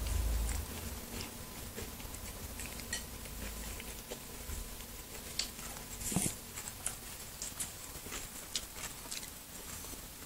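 A kitten chewing pieces of raw cucumber: a scatter of small, irregular crisp clicks and crunches.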